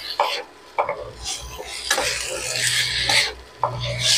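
Wooden spatula stirring and scraping radish, potato and eggplant in a nonstick kadai, with about five irregular taps against the pan. Under it the vegetables sizzle as the last of the water cooks off, the hiss growing near the end.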